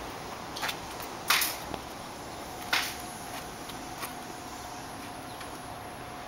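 A few short, sharp clicks and knocks over a steady background hiss, the loudest about a second in and another a second and a half later.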